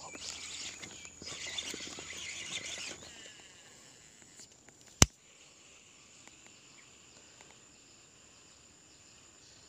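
Rustling handling noise for about three seconds, then a single sharp click about five seconds in, with a steady high drone of insects underneath.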